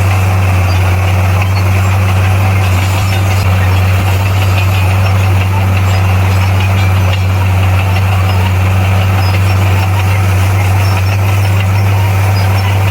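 Komatsu D58P bulldozer's diesel engine running steadily, an even low drone that holds the same pitch throughout.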